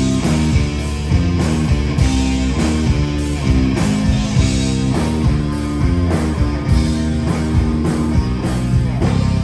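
Rock band playing loudly with electric guitars and drums, as a heavy, steady beat under held guitar chords.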